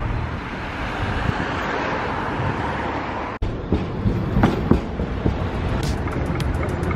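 Steady street noise, then after an abrupt cut about halfway through, a city tram running past on its rails with a low rumble and a few brief high squeals. Near the end, music comes in with an evenly ticking hi-hat beat.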